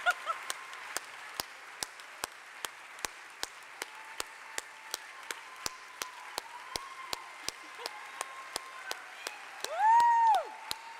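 Audience applause dominated by steady rhythmic clapping at a little over two claps a second, over a low murmur of voices. Near the end one person gives a loud, long whoop that rises and falls.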